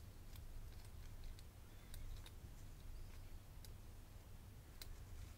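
Faint, scattered light clicks of small metal parts of a Bowley Rotasera disc-detainer lock being handled and turned in the fingers, over a faint low hum.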